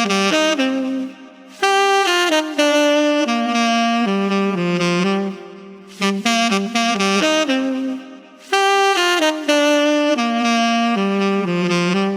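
A saxophone playing an unaccompanied melody of single notes, in phrases with short breathing pauses between them. The same phrase is played twice.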